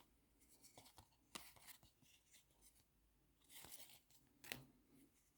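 Faint handling of trading cards: scattered soft clicks and short rustles as cards are slid and flipped through a stack.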